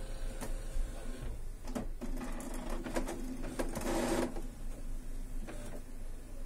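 HP Smart Tank 515 inkjet printer initializing: its mechanism whirs and clicks several times, with a louder whirr about four seconds in. It is a smooth start-up with the E3 error cleared.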